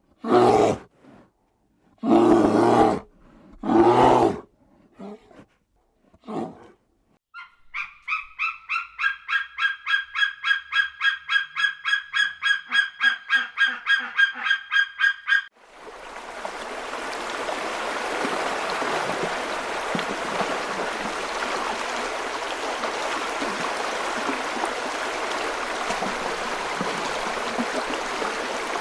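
A few loud, low animal calls, then a long run of rapid honking calls at about four a second, then a steady rush of running water from about halfway through.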